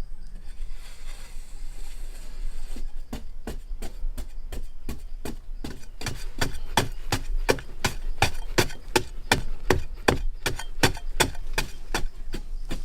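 A rapid, regular series of sharp knocks, about three a second, starting a few seconds in and growing louder about halfway through.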